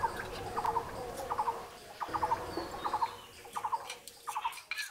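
A bird calling in a steady run of short, repeated calls, about two to three a second, dying away near the end.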